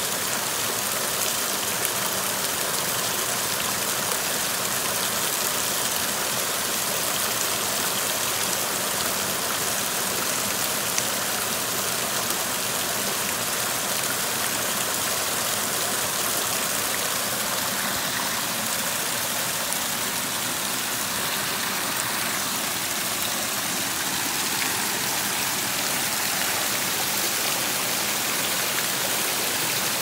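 Small waterfall running and splashing over rocks: a steady rush of water.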